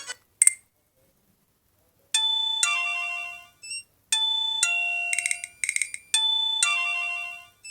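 Alcatel One Touch OT-810 mobile phone playing a ringtone through its small speaker: a chiming, doorbell-like two-note phrase falling in pitch, repeated three times about two seconds apart, after a short click about half a second in.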